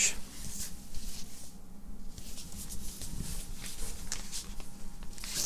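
Soft rustling and light taps of cardboard LP record jackets being handled and shuffled in a cardboard box.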